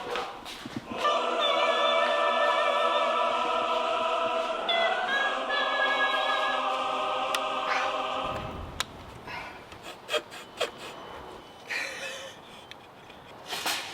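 A choir singing long held notes, an 'ahh'-style chord with vibrato that steps up in pitch about halfway through. It fades out after about eight seconds, leaving a few faint clicks and knocks.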